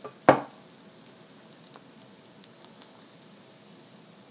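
A single loud thump about a third of a second in, then faint, sparse crackling from corn tortillas heating on a hot flattop griddle.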